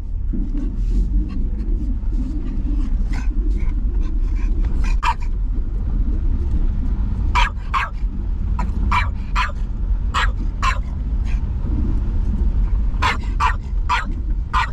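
A dog barking over and over in short yaps, often two or three at a time, over the low, steady running of a vehicle engine.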